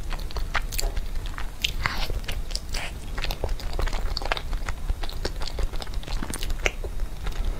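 Mouth sounds of a person chewing a soft glutinous rice cake (nuomici) filled with milk-tea cream and tapioca pearls: irregular wet clicks and smacks, several a second.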